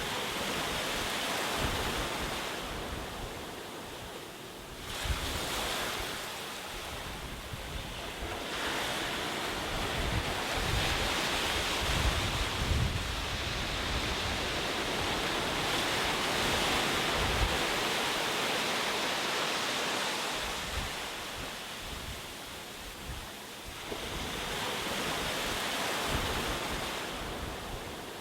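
Sea waves breaking and washing ashore, the surf swelling and ebbing in slow surges every several seconds, with wind rumbling on the microphone.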